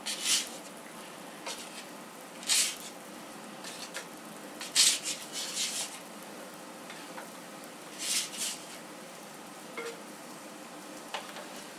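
Welshcake dough rounds sizzling as they are laid one at a time onto a hot cast-iron pot: a short sharp burst of sizzling as each one goes in, over a faint steady sizzle. Near the end there are a couple of light ticks of a fork against the pan.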